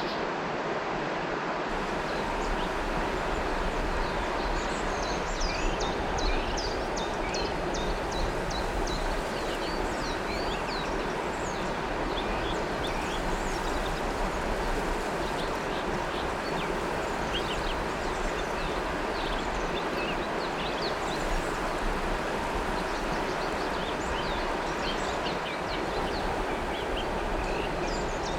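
River water flowing in a steady rush, with many small birds chirping in short quick notes throughout.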